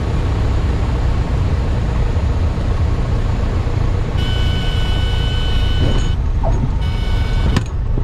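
Beech Sundowner's four-cylinder Lycoming engine turning the propeller at low power, with heavy wind and rolling noise, as the plane rolls along a paved runway. About four seconds in, a steady high tone sounds for about two seconds, and a sharp click comes near the end.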